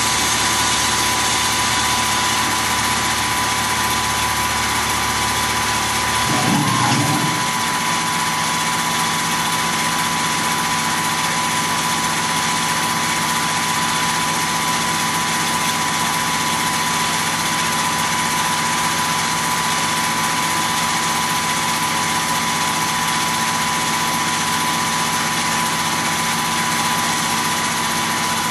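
Tormach PCNC 1100 CNC mill, set up as a Duality lathe, running through an automatic facing cycle on a brass spacer: a steady machine hum with a constant high whine. About six seconds in there is a brief surge, after which the low rumble drops away and the machine runs on evenly.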